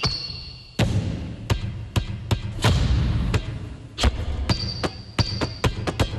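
Irregular sharp knocks and thuds, roughly two a second, over a low rumble, with a steady high beep at the start and again about four and a half seconds in.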